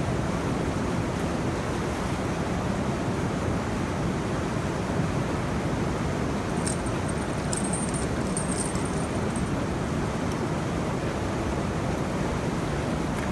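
Steady rush of water flowing through a needle dam. A few faint high clicks come about halfway through.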